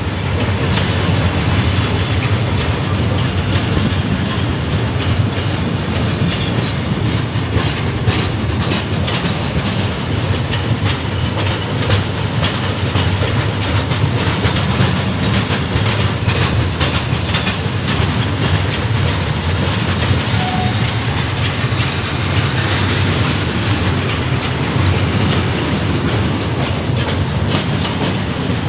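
Freight train of steel hopper wagons rolling steadily past: a continuous rumble of wheels on rail with many quick clicks and rattles as the wheels cross rail joints.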